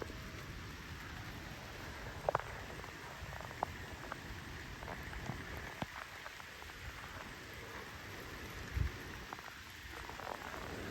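Steady rain, with scattered single drops ticking sharply close by as they hit the camera. There is a short dull low thump about nine seconds in.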